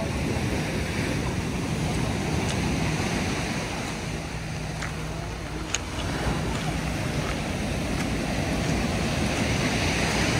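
Sea surf washing against the shore, mixed with wind buffeting the microphone.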